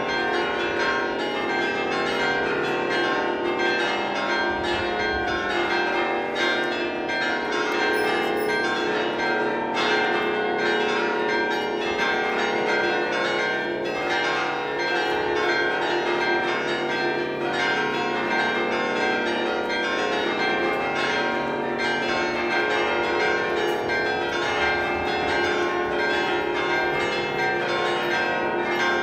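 Church tower bells ringing a festive peal: many bells of different pitches struck in quick, overlapping succession, ringing on without a pause.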